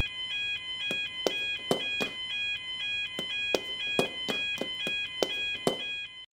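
Railroad crossing warning bell ringing: two high electronic tones alternating in a steady rhythm, with sharp clicks about two a second.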